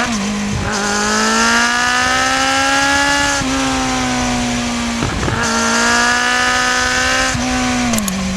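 Kawasaki Z750 inline-four motorcycle engine under way, its note climbing steadily through the revs, dipping briefly at gear changes about three and five seconds in, then falling off near the end as the throttle closes.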